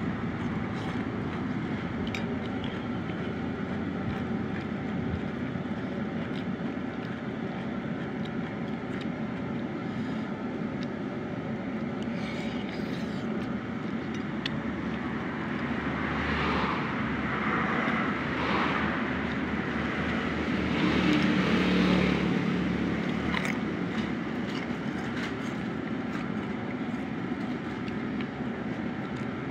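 Steady hum of passing road traffic, with a vehicle going by louder about two-thirds of the way through. A few light clicks of spoon and fork on plates.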